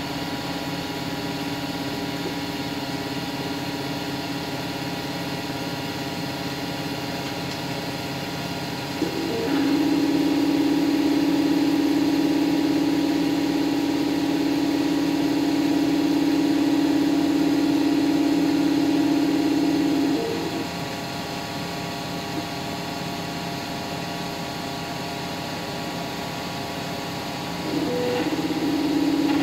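3D printer running: its fans hum steadily. A stepper motor whine starts abruptly about nine seconds in, holds one steady pitch for about ten seconds, cuts off, and comes back near the end.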